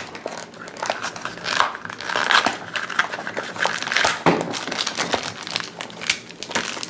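A small foil blind bag crinkling in quick, irregular crackles as hands tear it open and crumple it.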